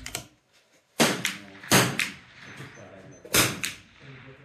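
.22 LR rimfire rifle shots on a firing line. Three loud sharp cracks come about a second in, near the middle and near the end, each followed by a softer report, with fainter shots between them.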